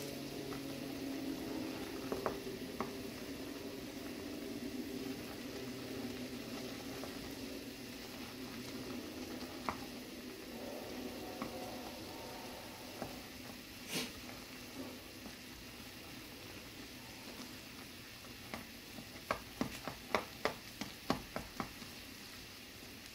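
Spicy instant jjamppong broth with noodles bubbling at a boil in a pan, stirred with chopsticks. Chopsticks click against the pan now and then, with a quick run of about a dozen clicks near the end.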